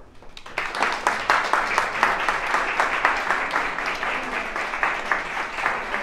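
A small seated audience applauding. The clapping starts about half a second in and holds steady.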